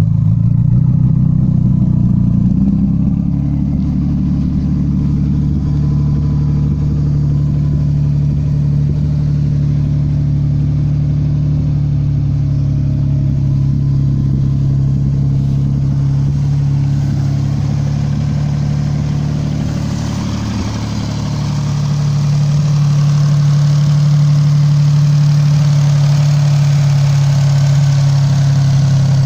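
Turbocharged car engine idling through a quad-tip exhaust, a little unsettled for the first few seconds, then steady. It dips briefly about twenty seconds in, then picks up again.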